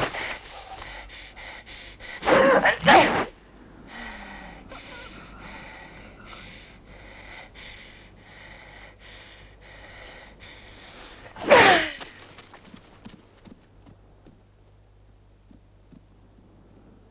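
A horse whinnies in a long, loud falling call about eleven seconds in. Before it comes a loud cry about two seconds in, and between the two, steady rhythmic heavy breaths about twice a second.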